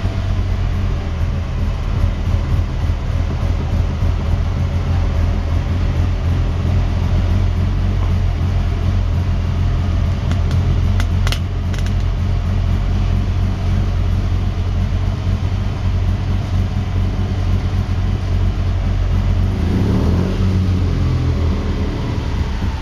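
Panhard Dyna Junior's air-cooled flat-twin engine running steadily, its revs shifting with a change in pitch near the end. A brief click about halfway through.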